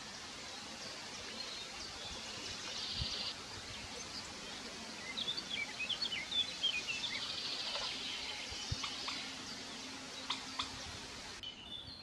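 Small birds chirping against a steady outdoor hiss, with a cluster of quick high chirps about five to seven seconds in.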